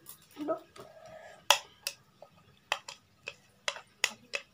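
A utensil clicking against a plastic bowl: about eight sharp, separate taps at uneven intervals, starting about a second and a half in.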